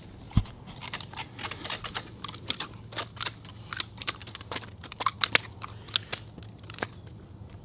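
Scattered light clicks and taps as a freshly caught redfish is handled on a boat deck, with one low thump about half a second in. A high, rapidly and evenly pulsing insect buzz runs underneath.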